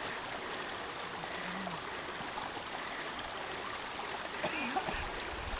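Shallow mountain stream babbling steadily over stones.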